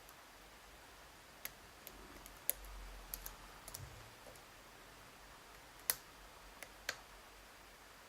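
Faint, irregular small metallic clicks of a hook pick working the pins of a Lockwood V7 pin-tumbler lock held under tension with a pry-bar tension wrench. Two sharper clicks stand out, about a third of the way through and about three quarters of the way through.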